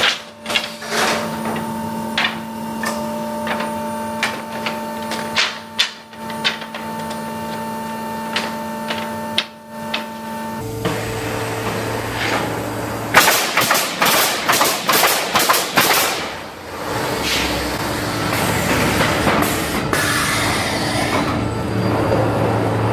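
Automatic pallet nailing machine running: a steady machine hum with irregular knocks of wooden boards being set in place. After about ten seconds the hum drops lower, and a rapid run of sharp nailing shots follows for about three seconds.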